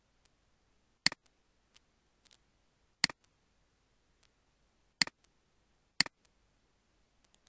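Computer mouse button clicks: four sharp clicks, each with a quick second tick of press and release, about a second, three, five and six seconds in, with a few fainter ticks between them.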